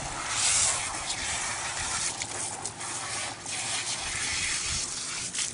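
Water spraying from a hose-fed Aqua-Comb as it is drawn through a wet dog's coat: a hiss that swells and fades, loudest about half a second in.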